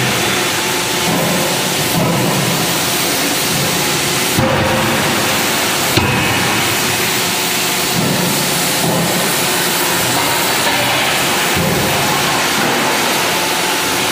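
Steady loud machinery din of a CNC hydraulic die forging hammer at work, with sharp knocks about two, four and a half and six seconds in, the last one the strongest: the ram striking a hot workpiece in the dies.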